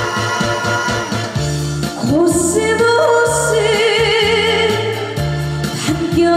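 Trot song with instrumental accompaniment and a steady bass line; a young woman's voice comes in about two seconds in, singing the verse with a wavering vibrato on held notes.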